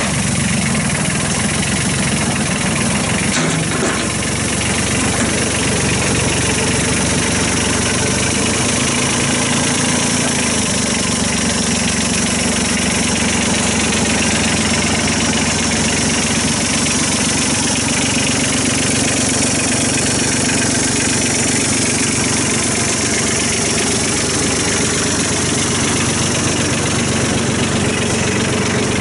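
Kubota B8200 compact tractor's diesel engine idling steadily.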